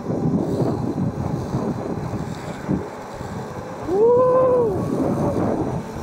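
Wind buffeting the microphone of a moving mountain bike rider, a steady rough rumble. About four seconds in, a short pitched call or tone rises, holds and falls over about a second.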